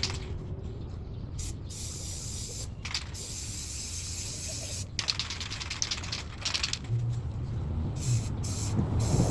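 Aerosol spray paint can hissing in several separate bursts with short pauses between them.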